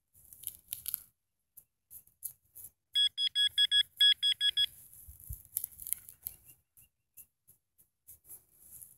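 Nokta handheld pinpointer beeping rapidly, about seven beeps a second for under two seconds with a short break partway through, as it is pushed into the hole and finds a metal target. Faint crumbling and scraping of soil around it.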